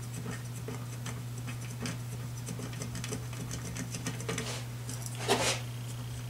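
Small metallic clicks and scrapes of the globe-holder screws on a ceiling fan's light fitting being loosened, with one louder clatter about five seconds in, over a steady low hum.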